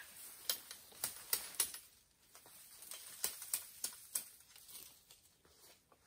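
Dry bamboo twigs and leaf litter crackling and snapping as bamboo is handled: about a dozen sharp, irregular clicks. They fade out near the end.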